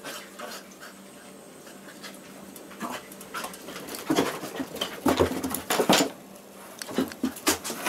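A labradoodle and a basset hound play-fighting, making a run of short, sharp dog sounds and scuffling. These are loudest from about four to six seconds in, with a few more just after seven seconds.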